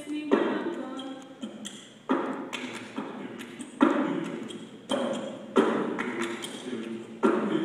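A school choir's a capella performance: sharp percussive hits about once a second, each followed by a short burst of massed voices that rings out in the hall.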